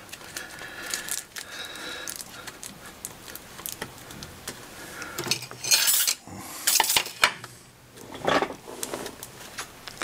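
Aluminium foil being crumpled and pressed by hand into a small dome, crinkling and crackling, with louder bursts of crinkling about six, seven and eight and a half seconds in.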